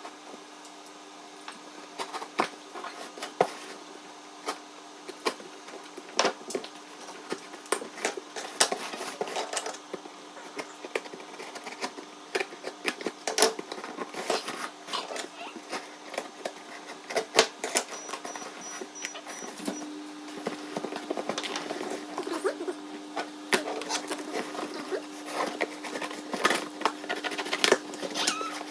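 A cardboard shoebox being opened and handled: irregular clicks, knocks and rustles throughout, over a steady low hum that gets a little louder about twenty seconds in.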